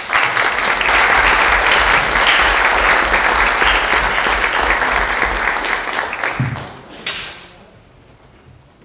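Audience applauding, loud and dense for about six seconds, then dying away, with one brief sharp noise about seven seconds in.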